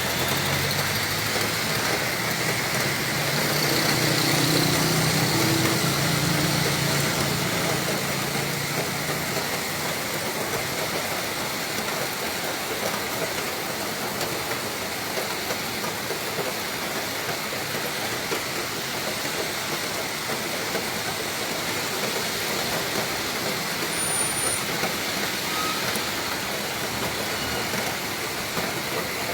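Heavy rain pouring steadily in a windy storm, with a motor vehicle's engine passing through the rain in the first several seconds.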